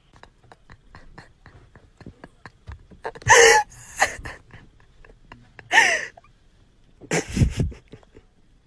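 Several short, breathy gasps of laughter, the loudest about three seconds in and again near six seconds, with a heavier one near the end, over a run of faint clicks.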